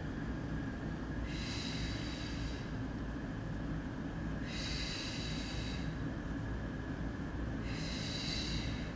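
A person's breathing during a Pilates leg-circle exercise. It comes as a hiss of about a second, repeated three times at roughly three-second intervals, in time with the leg circles, over a steady low hum.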